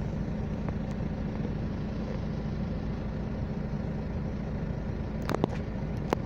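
Steady engine hum and low rumble of a vehicle in slow traffic, heard from inside its cabin, with a constant low drone. A few sharp clicks come about five seconds in and again just before the end.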